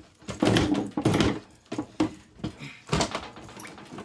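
A flat-blade screwdriver prying at the lid seam of a small steel biometric handgun safe, giving a series of metal scrapes and knocks, about five in four seconds.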